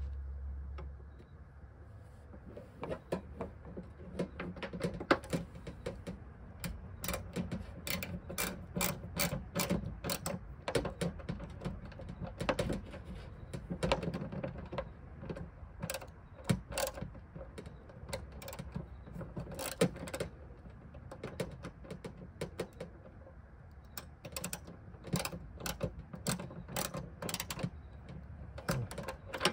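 Hand socket ratchet clicking in quick runs of strokes with short pauses between, as it turns a hood hinge bolt.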